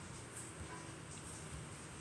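Quiet room tone: a low steady hum under faint hiss.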